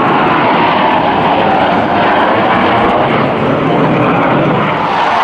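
Loud, steady jet roar from a four-ship diamond of Blue Angels F/A-18 Hornets, their twin turbofan engines at flight power as the formation passes.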